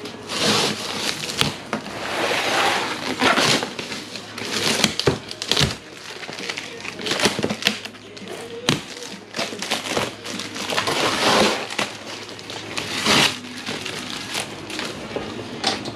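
Packaging being pulled open and out of a box: plastic and cardboard crinkling and rustling in irregular bursts, with sharp knocks and scrapes.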